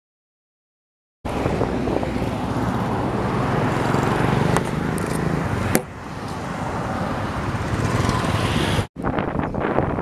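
About a second of silence, then steady motorcycle and road-traffic noise. The noise breaks off abruptly twice, and after the second break wind buffets the microphone in uneven gusts.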